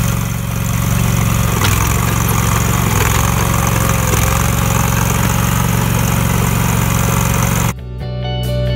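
Walk-behind trencher's gas engine running steadily under load while its digging chain cuts through sandy soil. It cuts off suddenly near the end and guitar music begins.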